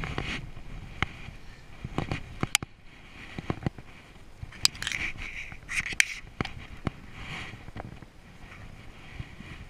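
Water splashing and lapping against a plastic pedal boat's hull, with scattered sharp clicks and knocks, the busiest stretch about halfway through.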